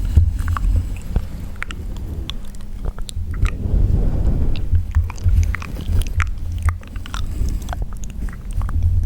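Close-miked wet mouth sounds: irregular tongue and lip clicks and smacks over a low rumble, with a soft breathy swell about four seconds in.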